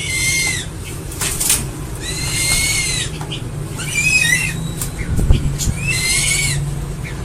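An eagle calling: about four high, whistled screams, each bending in pitch and lasting up to a second, spaced about two seconds apart, over a low steady rumble.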